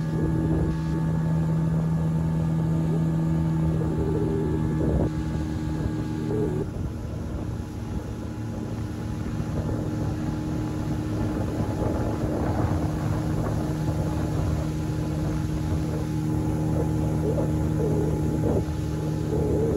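Motorboat engine running steadily while the boat is under way. About six and a half seconds in its tone changes, its higher notes dropping away, then it steadies again.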